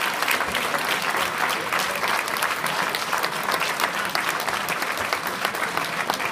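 A crowd applauding: many people clapping together, steady and dense.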